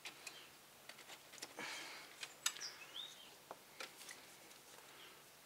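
Faint clicks, taps and rustles of hands working a rubber heater hose onto a plastic inline coolant filter in a car's engine bay, with a short rising chirp about three seconds in.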